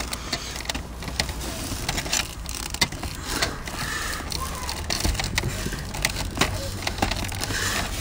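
A stuck plastic wiring-harness plug on a car's electric window switch being worked and tugged by hand, with scattered small clicks and rattles of plastic and wire. The connector will not come apart and takes brute force to separate.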